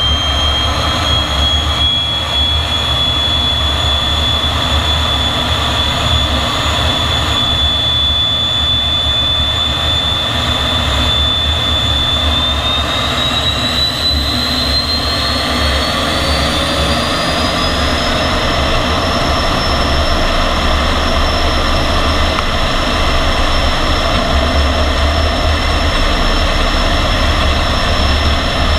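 MiG-15 jet engine running with a loud rush and a high turbine whine. The whine holds steady, then climbs in pitch over about six seconds near the middle and settles higher as the engine spools up.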